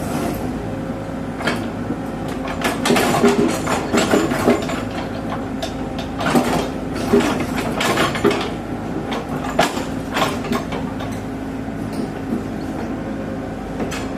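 Heavy earthmoving machinery working: an engine running with a steady hum, with repeated metal clanks and rattles, busiest through the middle and easing off near the end.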